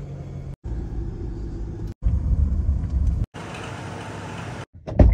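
Car engine running and low driving rumble heard inside the cabin, in short pieces cut off abruptly every second or so. This gives way to a steady hiss, then a single loud thump near the end.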